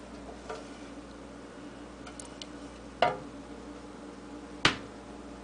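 Two sharp knocks about a second and a half apart as a green aquarium net and a clear plastic container are handled. The second knock is louder. A low steady hum runs underneath.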